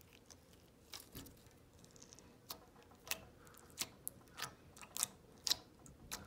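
Clear glue slime with little fruit slices mixed in, squeezed and folded by hand, giving a string of sharp pops and clicks, about nine of them at uneven intervals.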